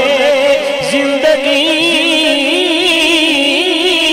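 Male voice singing an Urdu naat without instruments, drawing out long ornamented notes with a quick vibrato.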